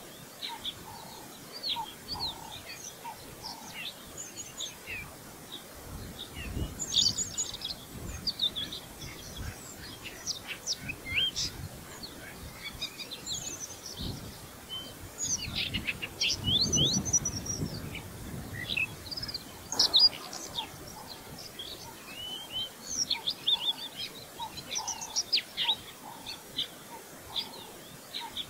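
Small birds chirping and calling, many short, high chirps one after another. A low rumble comes in for a few seconds past the middle, and a sharp click follows a little later.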